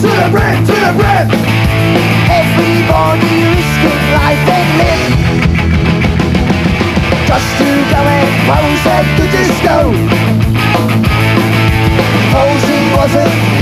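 Punk rock band playing loudly, an instrumental stretch without vocals.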